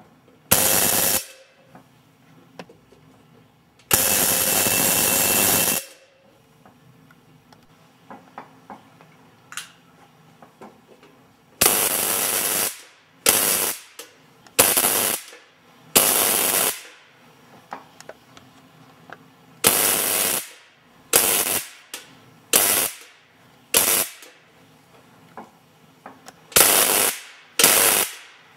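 Tesla coil sparks crackling in repeated bursts, each switching on and off sharply and lasting half a second to two seconds. The longest burst is about two seconds, a few seconds in. The rest come in quick groups in the second half.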